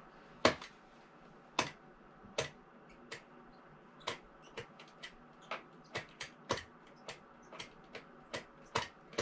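A box cutter working at a cardboard box insert and the twine holding a model horse in place, making irregular sharp clicks and snaps, about two a second. The loudest snap comes about half a second in.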